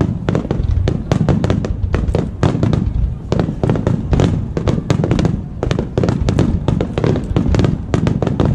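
Aerial fireworks going off in a rapid barrage, many sharp bangs a second over a continuous low booming rumble.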